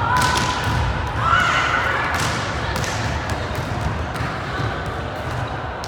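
Crowd of players and spectators chattering and shouting during a volleyball match, with a few sharp thumps of the volleyball.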